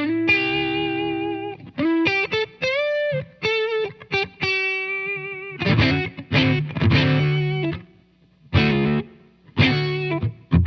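Electric guitar overdriven through a Joyo R-02 Taichi pedal, a Zendrive clone voiced for a smooth Dumble-style tone: sustained single-note lead lines with string bends and vibrato, then strummed chords from about halfway through, with a brief pause near the end.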